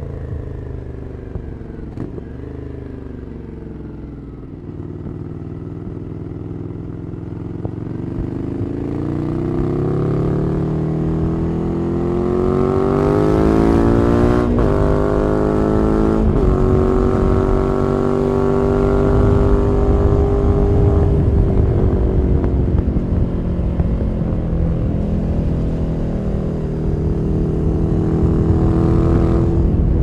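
Ducati Scrambler Nightshift's 803 cc air-cooled L-twin running through a Zard Zuma slip-on exhaust while riding. It eases off at first, then accelerates with the pitch climbing for several seconds, drops sharply with two quick upshifts about halfway through, and settles into a steady cruise before picking up again near the end.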